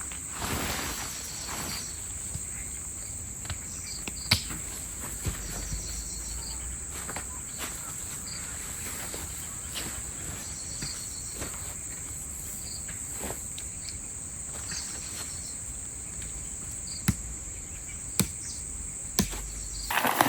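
Steady high-pitched insect chorus in woodland, with scattered sharp clicks and knocks, the loudest about four seconds in and a few near the end.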